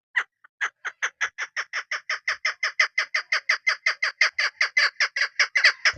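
Chukar partridge hen calling: a fast, even run of short, sharp notes, about six a second, that starts a moment in and keeps going.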